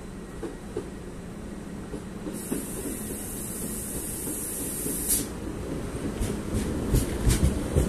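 Deutsche Bahn ICE train pulling into the platform, growing steadily louder as it nears. A high hiss runs for about three seconds in the middle, and a run of clacks from the wheels over the track comes near the end as the front passes.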